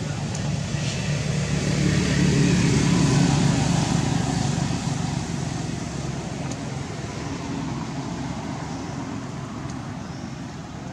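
A motor vehicle's engine passing, loudest a few seconds in and then slowly fading away.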